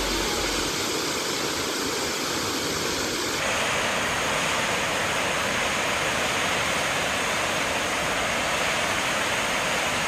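Steady rushing hiss of a tall waterfall plunging into a deep rocky gorge. It turns louder and brighter about three seconds in.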